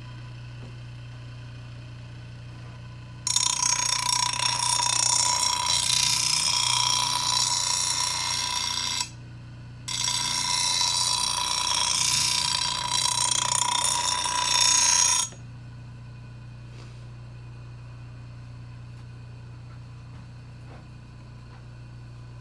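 Angle grinder running with a steady motor hum, grinding the steel edge of a lawnmower blade in two long passes of about six and five seconds. Each pass is a loud, hissing grind with a ringing tone, and there is a brief lift-off between them.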